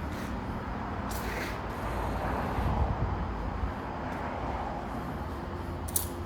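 Steady low rumble of a vehicle, with a short hiss about a second in and a sharp click near the end.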